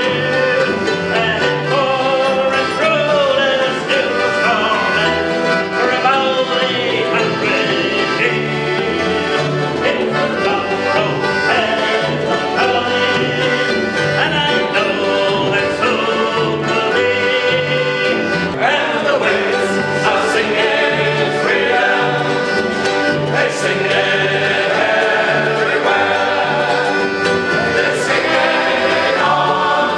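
Live folk band: a group of men singing together over accordion, mandolin and strummed acoustic guitars, with a steady pulse in the bass.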